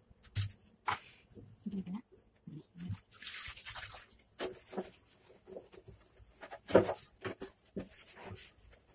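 Cleaning handling on a kitchen counter: a cloth dipped and sloshed in a steel bowl of water, with splashing and dripping, among clinks and knocks of steel against the stone countertop. A sharp knock about seven seconds in, the loudest sound, as the stainless-steel gas stove is gripped and moved.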